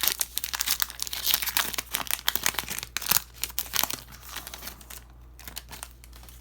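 Foil trading-card pack wrapper being torn open and crinkled, with dense crackling that thins out after about four seconds.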